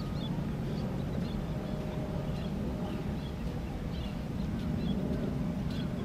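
Steady low rumble of shoreline ambience, with many scattered short, high bird calls and chirps.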